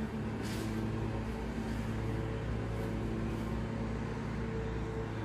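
Lawn mower engine running steadily outside, a constant droning hum.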